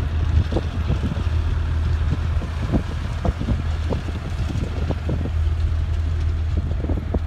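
1949 Euclid rock truck's engine running steadily as the loaded truck drives off, a low drone with wind buffeting the microphone.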